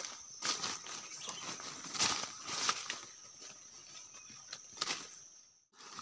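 Footsteps crunching through dry fallen leaves and brushing past dry undergrowth, irregular steps about one or two a second. The sound drops out briefly just before the end.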